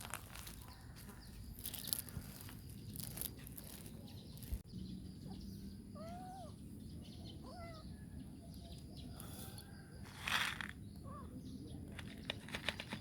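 A few short animal calls with a rising-and-falling pitch, about six seconds in, among scattered rustling and footstep-like noises.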